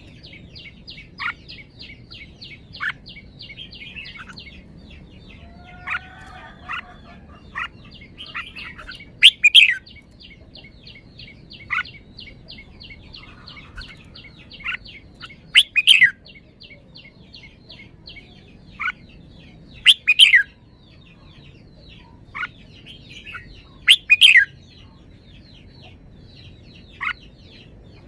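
Red-whiskered bulbul singing: four loud, short song phrases about four to five seconds apart, with brief single chirps in between. A fast, high, continuous ticking trill runs underneath.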